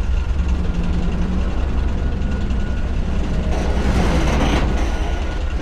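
Railway engine running with a steady low rumble, with no break or sudden event.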